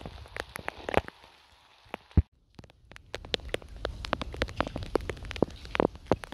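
Rain: scattered sharp drop ticks at irregular intervals over a low wind rumble on the microphone. About two seconds in there is a single thump and a moment of near silence, and then the ticks come thicker.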